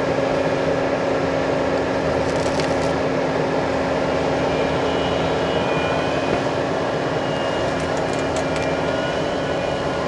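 Bobcat T770 compact track loader's diesel engine running steadily under load as the machine works a hydraulic tree puller through brush and pulls out a stump. A few faint cracks come about two and a half seconds and eight seconds in.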